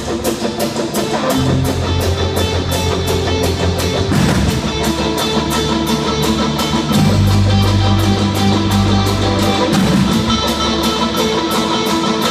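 Live rock band playing a song intro: electric guitars over a drum kit keeping a steady cymbal beat of about three or four strokes a second, with low bass notes held for a few seconds each.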